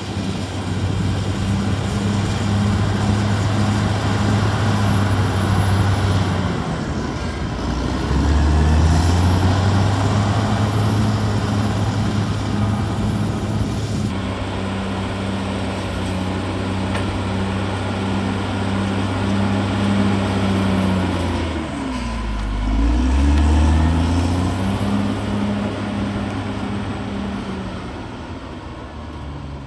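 Caterpillar D6R XL bulldozer's diesel engine running hard, its pitch sagging and recovering about seven seconds in and again about twenty-two seconds in, over a steady rush of mechanical noise.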